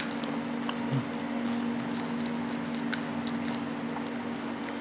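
Eating and handling of pani puri: a few faint clicks and crackles of crisp puris, wet chewing and squishing, and a soft thump about a second in, over a steady low hum.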